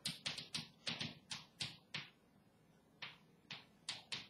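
Chalk writing on a blackboard: a quick run of short taps and scratches for about two seconds, a pause of about a second, then four more strokes near the end.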